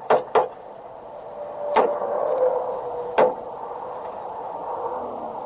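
Rapid rifle fire from an AR-15: two quick shots at the very start, then two more single shots about 1.8 s and 3.2 s in. A steady mid-pitched hum runs beneath from about 1.5 s on.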